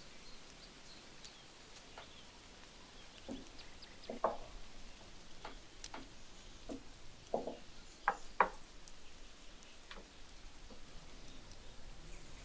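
A handful of light, irregular knocks and clicks, the loudest a close pair a little past the middle, with faint thin bird chirps behind them.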